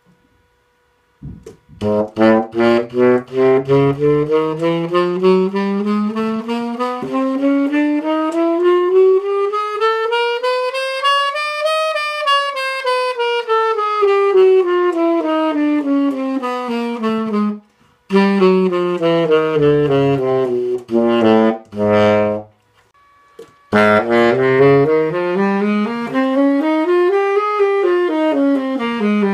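Tenor saxophone playing scales. A long run climbs note by note from the bottom of the horn's range and comes back down, the first notes tongued separately. After a short break come shorter runs, then a second up-and-down scale.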